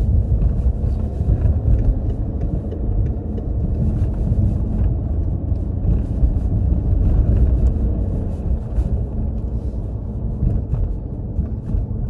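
A car driving along: steady low rumble of engine and road noise.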